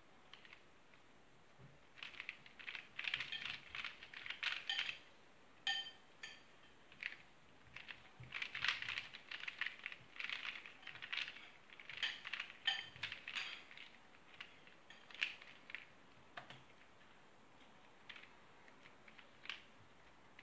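Plastic Square-1 puzzle being speedsolved by hand: quick clicks and clacks of its layers twisting and slicing, in irregular bursts, thinning out over the last few seconds as the solve ends.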